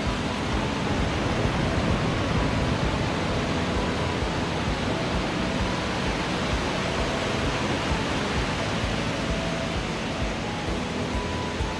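Steady rush of ocean surf breaking and washing up a sandy beach.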